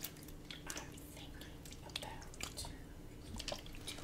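Faint crinkles and small irregular clicks from a clear plastic bottle being handled and tilted close to a microphone.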